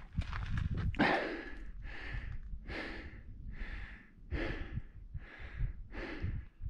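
A mountain biker breathing hard and fast, about one breath every three-quarters of a second, with a low rumble underneath.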